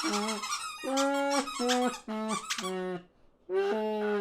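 Squeaky cartoon bird voices: a run of short high-pitched calls and chatters, then a brief pause and one last longer call near the end.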